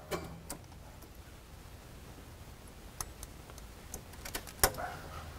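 Scattered light clicks and knocks from the Holley Terminator EFI handheld controller being handled and set down on a fender cover, the loudest a sharp knock about four and a half seconds in, over a low steady hum.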